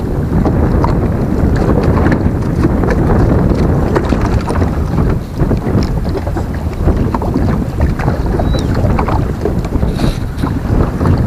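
Wind buffeting the microphone, a steady low rush, with a few small clicks and knocks.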